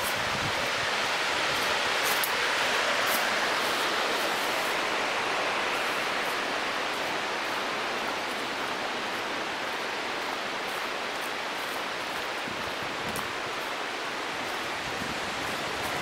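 Steady rush of falling water from a mountain waterfall or stream cascade, with a few light ticks over it.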